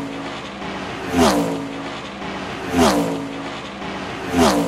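Race car sound effect: a car zooming past with its engine note dropping in pitch as it goes by, three times about a second and a half apart.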